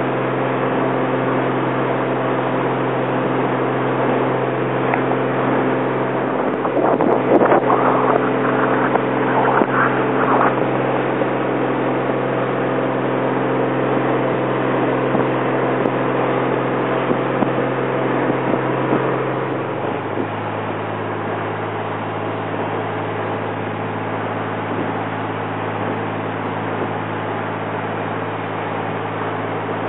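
Engine of a 1954 Chris-Craft Sea Skiff running steadily underway, with bursts of water splashing against the hull about seven to ten seconds in. About twenty seconds in, the engine note steps down lower and a little quieter as the boat eases off.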